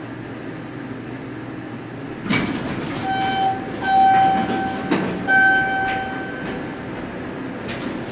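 Train running with a steady low rumble. A knock comes about two seconds in, then three held tones on one pitch, the last one the longest and loudest.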